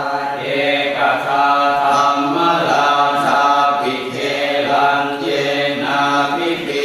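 Thai Buddhist chanting in Pali: voices reciting in a steady, even chant, phrase after phrase with short breaks every second or two.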